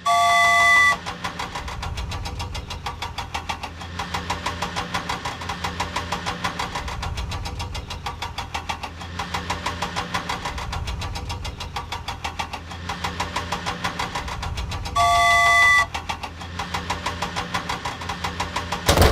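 Cartoon vehicle engine sound effect running with a steady, rapid chugging. A loud, short horn-like blast of several held tones sounds at the start and again about fifteen seconds in.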